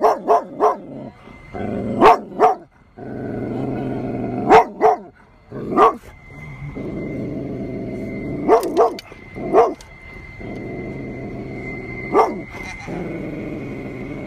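Golden retriever barking in short clusters of one to three loud barks, about a dozen in all, with a low growl between them: hostile barking at a large stuffed tiger.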